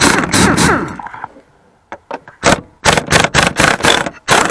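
Air impact wrench running on the seat's 15 mm floor bolts: a long hammering burst that winds down in pitch as the bolt spins free, then a rapid string of short trigger bursts, and another long burst near the end.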